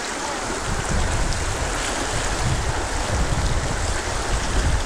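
River water rushing steadily over rocks, with an irregular low rumbling underneath.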